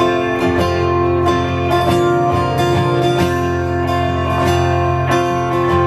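Acoustic guitar strummed in a steady rhythm over held chords: the instrumental intro of a worship song, before the singing comes in.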